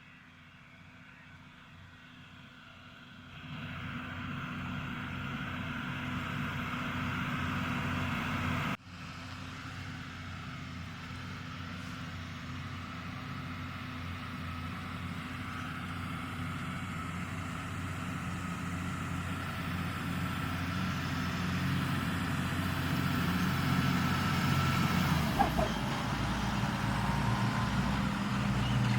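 Deutz-Fahr 6205 RShift tractor's diesel engine working under load while ploughing, faint at first and growing louder as it draws near. There is a sudden break about nine seconds in, and a deeper rumble comes in near the end.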